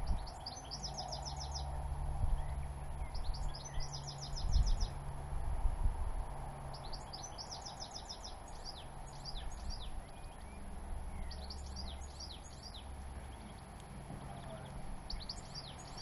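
European goldfinches twittering: six short bursts of rapid trilled notes spaced a few seconds apart, over a steady low rumble.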